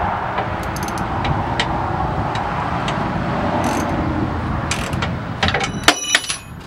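Hand tools on a steel truck frame: scattered light metallic clicks, then a loud ringing metal clank near the end. A steady rumbling background noise runs underneath and fades out just before the clank.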